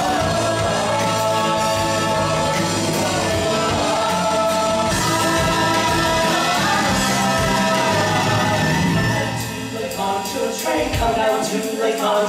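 Rock music with voices singing over a full band. Near the end the bass drops out and the music turns thinner and quieter.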